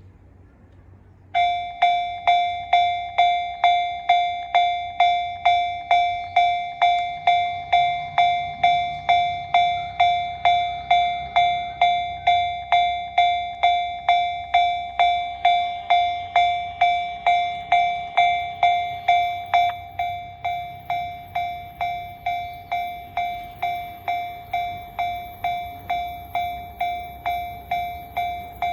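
Japanese railway level-crossing warning bell starting about a second and a half in and ringing a steady, repeated clang at about two strikes a second, which means the crossing is warning of an approaching train. It gets noticeably quieter about twenty seconds in.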